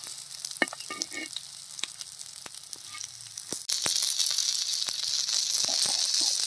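Masala-coated sardines shallow-frying in oil on a flat black griddle: a steady sizzle with scattered crackles and pops. A little past halfway the sizzle suddenly gets louder.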